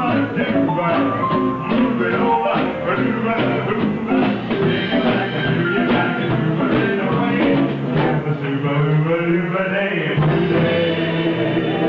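Live band performing a song, with singing and a drum beat; the drum hits thin out about two-thirds through, leaving held notes ringing.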